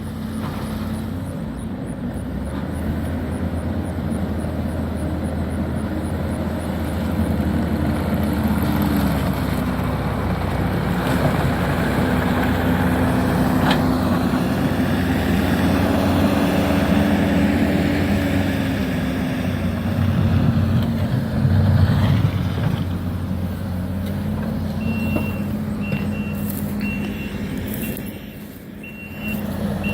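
Demolition excavator's diesel engine running under load, rising and falling in pitch as it works, with bricks and rubble clattering as they are dropped. Near the end a backup alarm beeps repeatedly.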